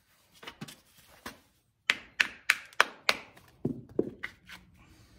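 A run of sharp knocks from work on a horse's lifted hoof: five hard ones about three a second, then a few softer ones.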